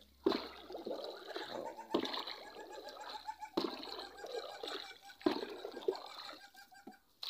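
Water splashing and trickling as a raft is pushed along, with a stroke in the water about every second and a half.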